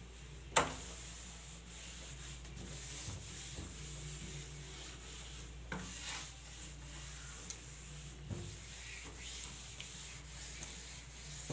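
A cloth rubbing and scrubbing over a panelled wooden door, wiping off dust. There is a sharp knock about half a second in and a couple of softer knocks later.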